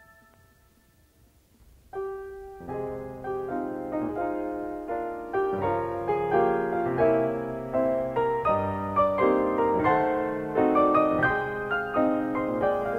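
Near silence for about two seconds, then a piano-sounding keyboard comes in, playing a melody of separate notes over chords with no drums.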